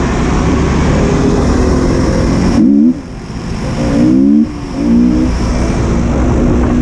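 Motorcycle engine revving in short rises. Its pitch climbs and falls off sharply about three seconds in and again a little later, then holds steady, over a rushing noise.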